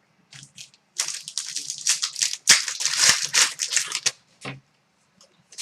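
A trading card pack's wrapper crinkling and rustling as it is torn open and handled, in a dense spell of a few seconds.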